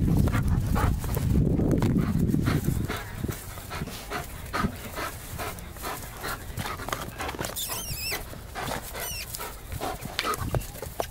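German Shepherd police dog panting in short rhythmic breaths while it jumps at and tugs on its handler. A couple of brief high-pitched squeaks come about eight seconds in.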